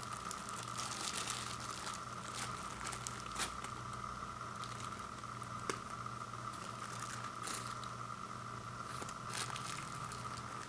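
Food packaging being handled: intermittent crinkling and rustling of plastic wrap and cardboard, with a few sharp clicks, over a steady high-pitched hum.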